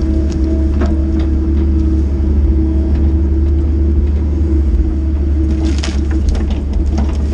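Compact excavator's diesel engine running steadily as the machine clears brush and debris, with scattered cracks and scrapes of branches and ground, a cluster of them about six seconds in.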